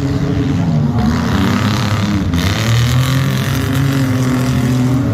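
Engines of several full-size race cars running together on the track, rising and falling in pitch as the drivers get on and off the throttle.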